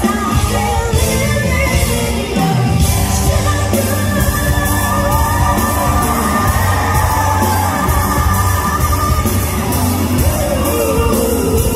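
A woman singing live into a handheld microphone over an amplified band with a steady beat, holding long notes through the middle.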